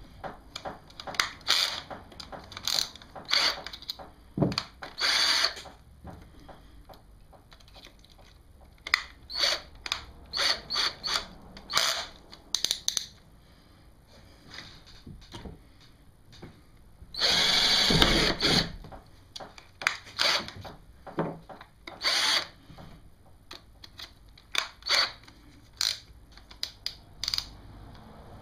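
Power drill run in many short stop-start bursts while fitting a track rail to a kayak. About two-thirds of the way through there is one longer run of a second or so.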